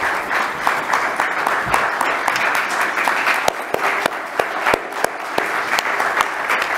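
Congregation applauding: many hands clapping steadily throughout.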